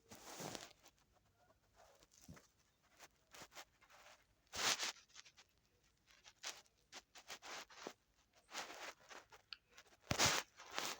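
Irregular rustling and scraping with light clicks, in short swishes of uneven length; two louder swishes come about halfway through and near the end.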